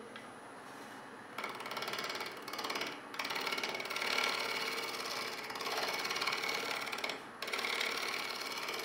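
Freshly sharpened spindle gouge, used as a scraper on its burr, scraping a wooden sphere as it spins on the lathe to take down the two points still proud of the surface. A fast, rattling scrape starts about a second and a half in, lifting off briefly about three seconds in and again near the end.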